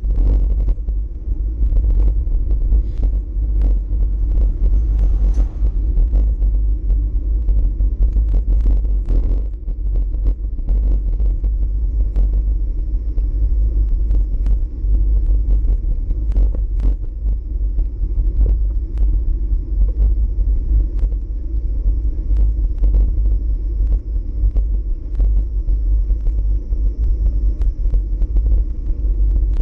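Wind buffeting the microphone of a bike-mounted GoPro Hero4 Session while cycling, a steady deep rumble with many scattered sharp ticks and knocks.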